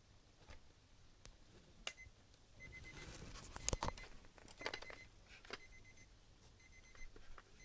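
M&M's alarm clock's alarm beeping, not very loud: short groups of quick high beeps repeating about once a second, starting under three seconds in. Clicks and rustling of the plastic clock being handled come in between, the loudest a knock near the middle.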